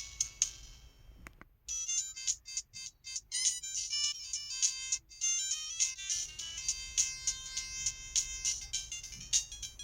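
LG-LB2900 mobile phone ringtones: one tune fades out about a second in, and after a short gap a new melody of bright synthesized notes with a clicking beat starts.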